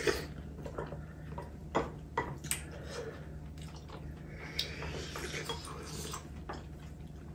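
Metal spoons and chopsticks clicking now and then against ceramic bowls as people eat a soupy rice porridge, over a faint low steady hum.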